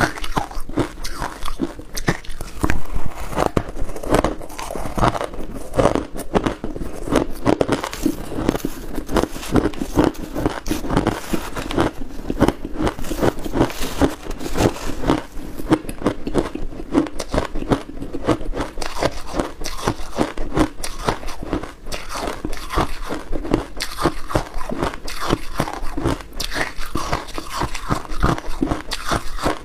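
Freezer frost being chewed close to a clip-on microphone: continuous rapid crunching of packed ice crystals between the teeth.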